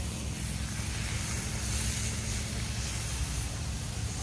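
Steady low rumble with a faint, even hiss above it: outdoor background noise with no distinct events.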